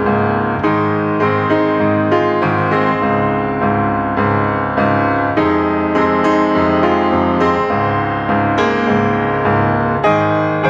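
Background piano music, notes struck at a steady, even pace.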